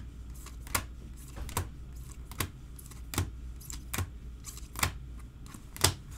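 A steady series of sharp, short clicks, about one every 0.8 seconds, evenly spaced like a ticking mechanism.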